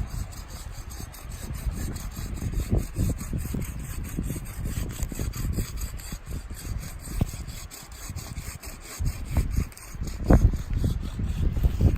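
A saw cutting through the trunk of a small conifer Christmas tree in quick, even back-and-forth strokes, with a few heavier knocks near the end.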